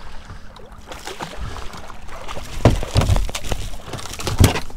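A king mackerel swung aboard a small boat, hitting and flopping on the deck in a quick series of sharp thumps over the last two seconds, after a stretch of water splash and boat noise.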